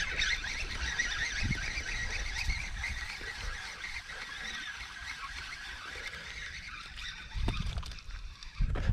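A dense chorus of high, rapid chattering calls from many small animals, slowly fading. Low thuds come in near the end.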